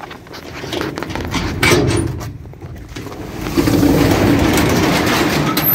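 Metal storage-unit door being unlocked and opened: clicks and knocks from the padlock and latch, then from about halfway a long steady rattle as the door is lifted.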